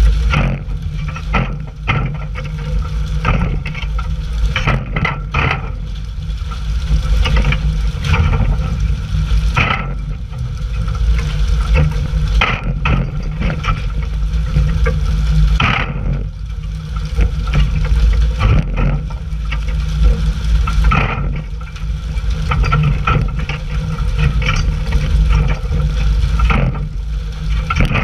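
A fishing boat's engine running under a steady hiss and splash of water from its deck sprayers, with irregular thumps and slaps as hooked tuna are swung aboard and land on the deck.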